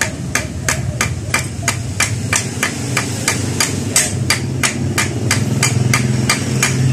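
Small hammer striking a steel punch in quick, even metallic blows, about three to four a second, peening over the rivets on a Yamaha Sniper 150 clutch housing. A steady low hum runs underneath.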